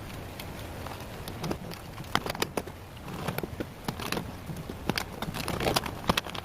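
Rubik's cube layers being twisted by hand: irregular plastic clicks and clacks, some in quick runs.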